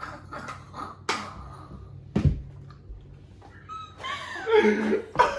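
Two people laughing hard in short breathy bursts, with a single thump about two seconds in and louder voiced laughter near the end.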